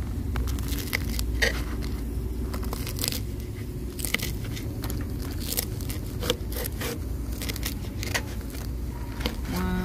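Crisp grilled pork belly and grilled pork intestine being cut on a plastic cutting board: scattered sharp crunches, crackles and clicks as the blade goes through the crisp skin and meets the board and the tongs, over a steady low rumble.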